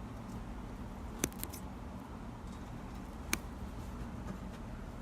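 Quiet handling of a slow-rising foam squishy toy being cut apart, with a few sharp clicks about a second in, just after and again past three seconds, over a low steady hum.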